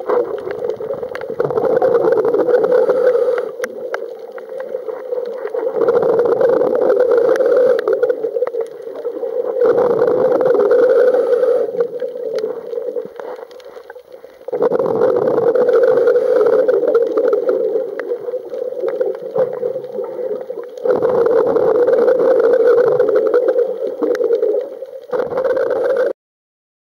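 A scuba diver's breathing heard through an underwater camera: about five long rushes of regulator exhaust bubbles, a few seconds apart, with quieter inhale gaps between them. The sound cuts off suddenly near the end.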